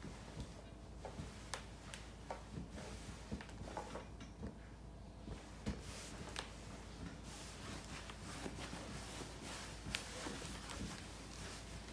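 Light handling noise of ironing denim: scattered small knocks and rustles as a dry iron and hands move over the fabric, with a sharper click about ten seconds in.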